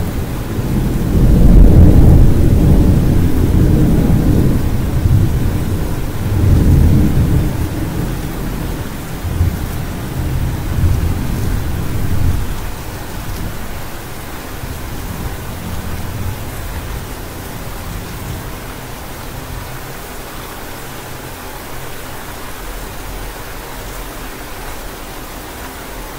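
Thunderstorm: steady rain with a long rumble of thunder that swells twice in the first half and then dies away, leaving the rain alone.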